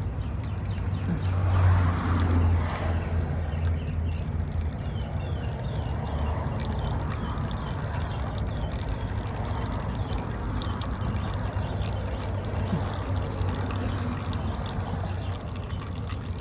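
Old engine oil pouring and trickling from the oil pan of a Nissan Xterra's 3.3-litre V6 into a catch pan, a steady stream as the engine drains. A low steady hum runs underneath.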